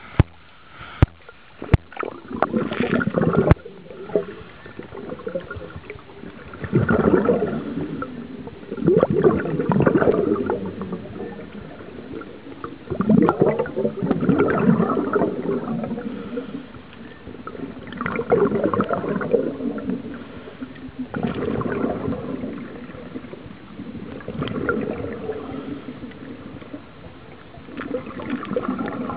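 Scuba regulator exhaust heard underwater: rushing, gurgling bubble bursts of a diver breathing out, one every three to four seconds. A few sharp knocks come in the first couple of seconds as the camera goes under.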